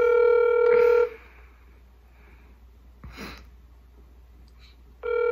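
Outgoing phone call's ringback tone played through a phone's speaker: a steady buzzy tone that stops about a second in and starts again near the end, the call ringing through and not yet answered.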